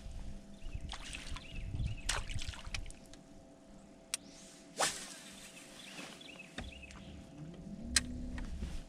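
Water sloshing and splashing with scattered sharp clicks and knocks, the loudest splash just before the middle, over a faint steady hum.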